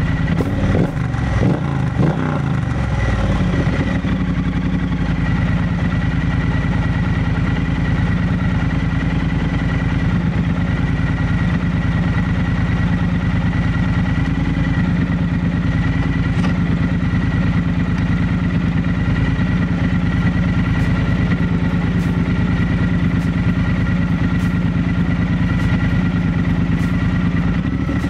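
Triumph Bonneville Bobber Black's 1200 cc parallel-twin engine running at a standstill: a few quick throttle blips in the first three seconds, then a steady idle.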